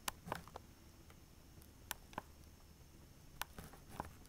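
Wooden chess pawns set down one at a time on a roll-up vinyl chess board and picked from a pile of pieces: a series of light, sharp clicks at uneven intervals.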